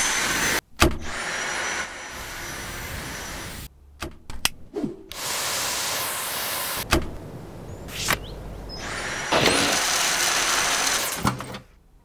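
Dyson V7 Motorhead cordless stick vacuum running in several short stretches with a high, steady motor whine. The motor spins up with a rising whine about a second in and again near the end. Sharp clicks fall between the stretches.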